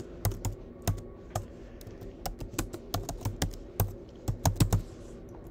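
Typing on a computer keyboard: a quick, uneven run of key clicks, some struck harder than others, stopping about a second before the end.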